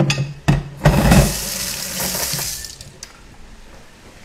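Kitchen tap running for about two seconds, starting just after a couple of knocks and then shut off.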